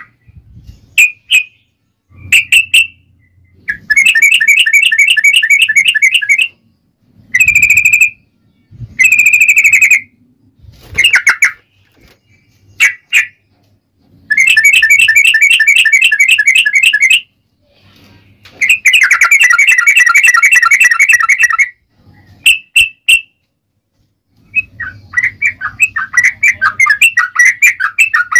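Yellow-vented bulbul (trucukan) singing loudly: short chirps broken by long, rapid rolling trills of two to three seconds each, several times over, with brief pauses between phrases.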